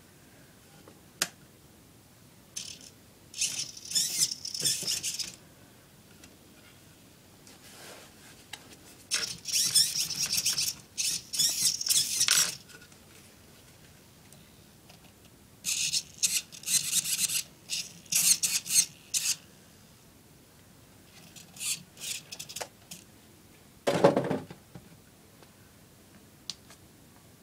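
Handling noise: four spells of rubbing and light rattling as the HPI Bullet MT 3.0 RC truck and the camera are moved about by hand, with one dull knock near the end.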